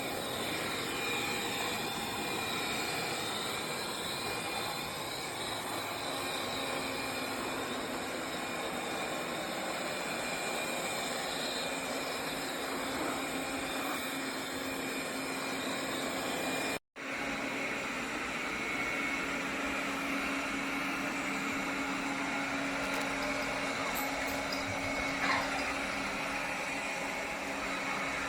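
Robot vacuum-mop running steadily, an even mechanical whirr with a faint steady whine. The sound drops out completely for an instant a little past halfway.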